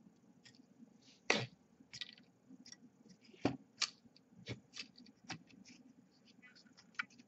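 Scattered light clicks and taps of hands handling a small quadcopter's frame and motor arms. The taps are irregular, and the sharpest come about a second and a half and three and a half seconds in.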